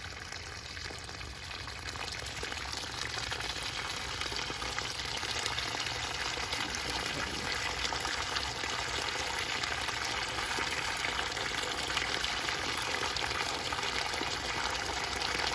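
Spa water gushing out of an opened plumbing fitting whose seal has been taken off, a steady rush of water that grows a little louder over the first few seconds.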